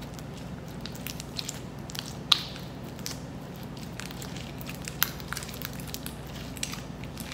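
Glitter slime being squished and kneaded in the hands: irregular small wet clicks and pops, with a sharper pop about two seconds in and another about five seconds in.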